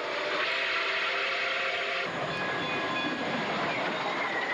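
Nickel Plate Road 765, a 2-8-4 Berkshire steam locomotive, sounding its steam whistle as a steady chord of several tones for about two seconds, which cuts off suddenly. The locomotive then rushes past close by with a loud, steady roar of running gear and exhaust.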